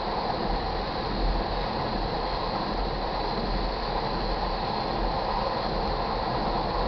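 Freight train tank cars rolling past, a steady noise of steel wheels on the rails.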